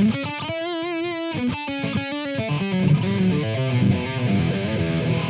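Electric guitar played through the IK Multimedia X-Drive overdrive pedal: a long held note with wide vibrato, then a few short notes and a run of single notes stepping downward.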